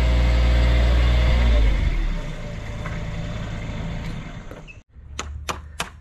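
A heavy truck engine idling steadily, dropping in level a little under two seconds in. Near the end, sharp hammer strikes driving wooden stakes for concrete forms into hard ground, about three a second.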